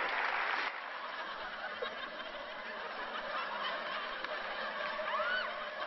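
Audience applause that cuts off abruptly under a second in, then the quieter background of a large audience with scattered laughter.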